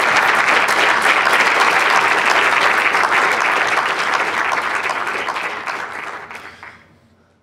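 Audience applauding at the end of a lecture, steady for about five seconds, then dying away near the end.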